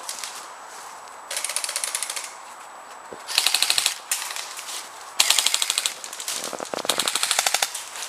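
Airsoft guns firing rapid full-auto bursts of evenly spaced shots, four bursts in all, each lasting under a second.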